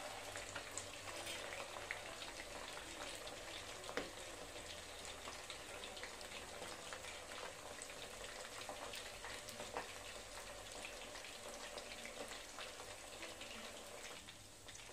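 Marinated, flour-coated chicken pieces deep-frying in oil on medium heat: a faint, steady sizzle full of small crackles and pops, with one louder pop about four seconds in.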